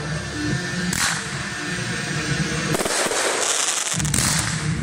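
Fireworks display set to music: a few sharp bangs over the music, then from about three seconds in a dense hissing rush while ground fountains spray sparks, the music coming back near the end.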